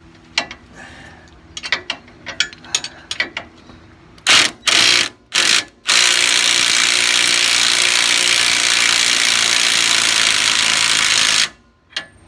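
Cordless impact wrench hammering a suspension bolt tight on a newly installed rear strut. Some light metal clinks of wrenches come first, then three short trigger bursts about four seconds in, then one long steady run of about five seconds that cuts off sharply.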